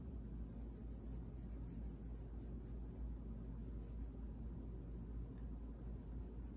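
A colored pencil stroking lightly on paper: soft, irregular scratchy shading strokes, over a low steady hum.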